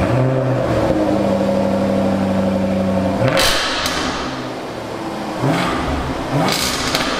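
Supercharged 5.0-litre V8 of a 2022 Jaguar F-Type R, idling high just after starting. The throttle is blipped in a few short revs: one about three seconds in and two more near the end.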